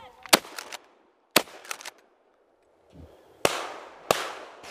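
Four shotgun shots fired at birds overhead: two sharp reports about a second apart, then, after a short pause, two more about half a second apart, each of the last two followed by a long fading echo.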